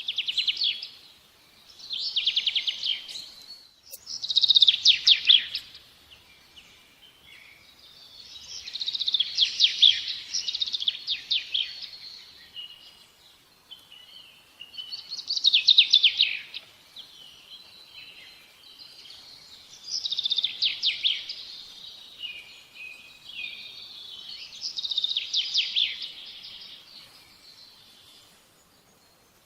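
A songbird singing, repeating short high-pitched trilled phrases every few seconds.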